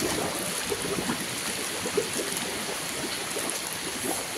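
Floodwater flowing and gurgling steadily, with bubbles welling up through it, against the hiss of heavy rain.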